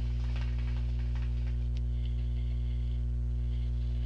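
A loud steady low electrical mains hum, with hookah water bubbling faintly as a pull is drawn through the hose in the first second and a half, then a soft breathy exhale of smoke from about two seconds in.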